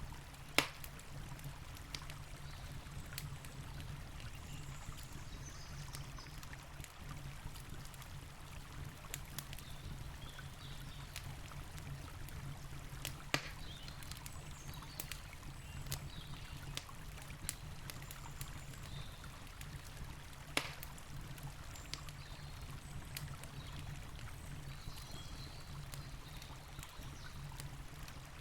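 Campfire crackling, with scattered small pops and three louder snaps, over the steady rush of a flowing river.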